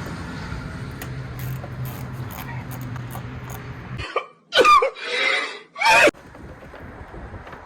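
A person coughing, with a short voiced sound either side of the cough, about four to six seconds in. Before it there is a steady low hum with faint clicks, which cuts out abruptly just as the coughing starts.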